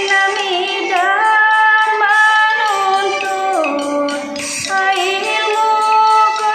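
A woman singing a Deder, the traditional sung verse of the Dayak Ngaju, in long held notes that slide and bend between pitches.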